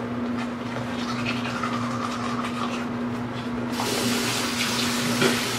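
Manual toothbrush scrubbing teeth in rapid strokes. About four seconds in, a faucet starts running into the sink. A steady hum runs beneath throughout.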